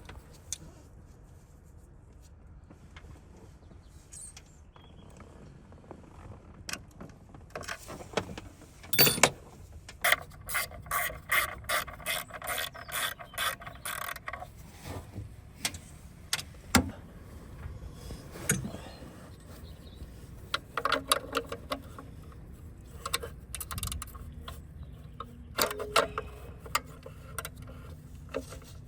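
Hand ratchet wrench clicking in quick runs, with scattered clinks of metal tools and parts.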